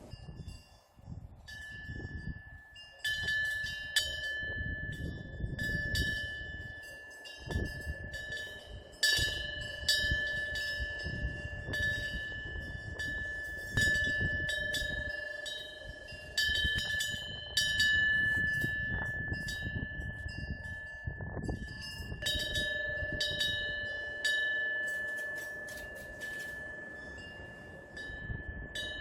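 Korean temple eave bell (pungyeong) ringing as the wind swings its clapper: irregular strikes every second or two, each renewing a sustained, clear ringing tone. A low, gusting wind rumble sits underneath.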